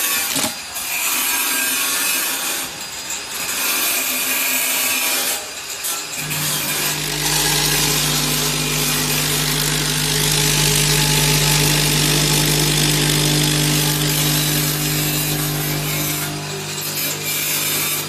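In-shell peanuts rustling and rattling as a hand stirs them in a filling-machine hopper. About six seconds in, the peanut weigh-filling machine starts running with a steady hum under a dense rattle of peanuts feeding through it. The lowest part of the hum drops away near the end.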